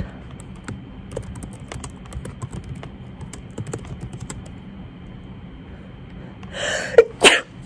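Typing on a computer keyboard: irregular light key clicks. Near the end comes a short noisy rush and two sharp clicks, the loudest sounds.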